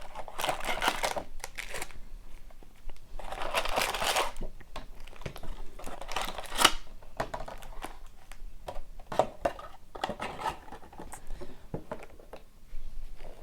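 Plastic wrapping on a hockey-card hobby box or pack being crinkled and torn open, in several bursts with a sharp rip about six seconds in, then quieter rustling and small clicks of handling.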